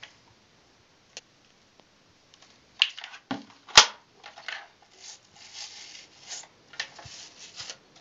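Hard plastic clicks and knocks from a vacuum cleaner's floor nozzle being handled and turned on its swivel joint, with one sharp snap near the middle. This is followed by scratchy rustling as plastic attachments are handled.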